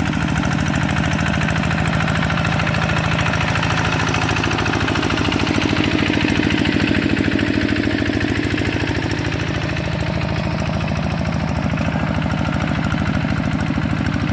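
Single-cylinder diesel engine of a two-wheel hand tractor running steadily under load as it drags a leveling board through flooded paddy mud, with a fast, even beat of firing strokes.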